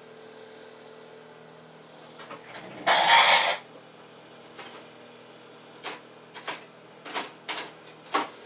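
Workbench handling noises: a loud scraping rustle lasting under a second about three seconds in, then a run of light clicks and knocks, over a steady low hum.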